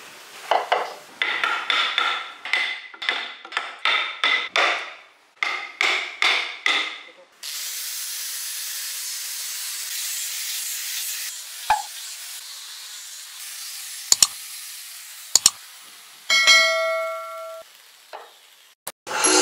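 Rhythmic rasping strokes of hand work on wood, about two a second, for the first seven seconds. Then the steady hiss of an angle grinder with a sanding disc sanding end grain on a thick wooden ring, with a few sharp clicks. A short chime near the end.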